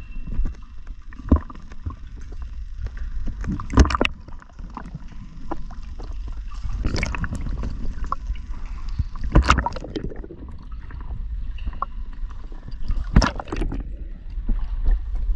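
Water sloshing and gurgling around a diver in a flooded cave sump, with a low steady rumble and a handful of sharp splashes or knocks a few seconds apart.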